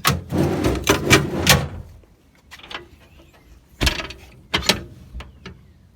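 Metal service-body compartment doors handled: a rattling clatter of latches and panels for the first second and a half, then two sharp knocks a bit under a second apart.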